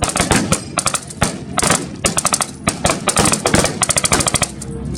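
Reenactors' guns firing blanks: short bursts of rapid automatic fire, about eight to ten shots a second, mixed with scattered single shots from several guns.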